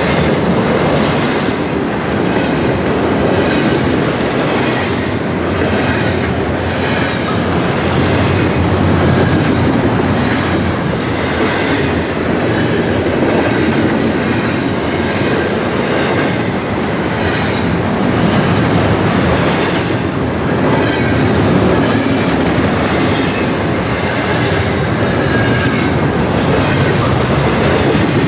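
Railway cars rolling past on the track, wheels clicking steadily over rail joints, with brief high wheel squeals about ten seconds in and again near the end.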